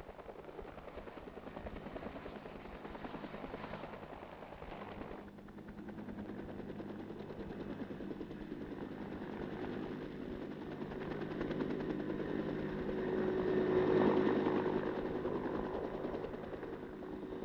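Helicopter rotor and engine, a fast steady blade chop that grows louder as the helicopter approaches, peaks about three-quarters of the way through, then eases.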